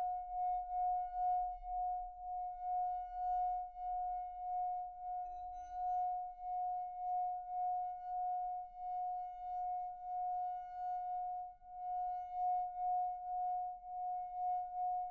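A single sustained ringing tone held on one pitch, swelling and fading in loudness a few times a second, like a struck or rubbed singing bowl.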